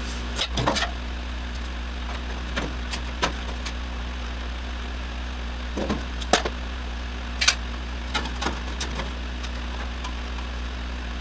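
Scattered knocks and clanks of sheet-metal body parts being handled and test-fitted, some singly and some in quick little clusters, over a steady low hum.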